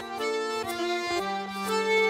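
Accordion playing a traditional Breton dance tune, held melody notes over a sustained bass note that drops lower about a second in.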